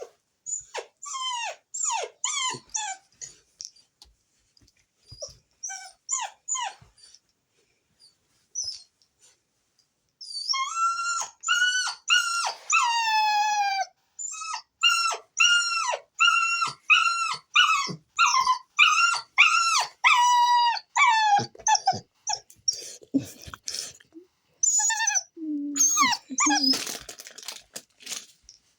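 Puppy whining and yelping in high cries that fall in pitch. There are short whines at first, a longer drawn-out cry about ten seconds in, then a quick run of repeated whimpers, with a few lower, rougher sounds near the end.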